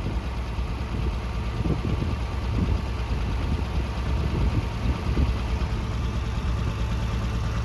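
Farmall 460 tractor engine idling steadily, a low even rumble.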